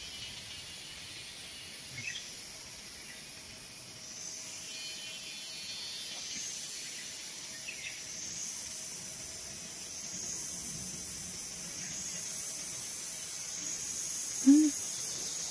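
High, steady drone of a forest insect chorus, growing louder about four seconds in. A brief human voice sound comes near the end.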